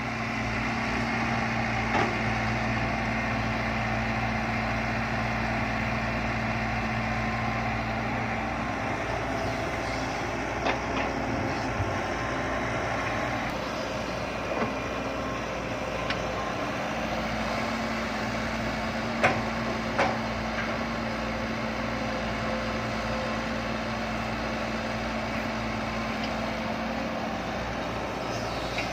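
Diesel six-wheel dump truck engines running with a steady low hum. A few short knocks sound now and then.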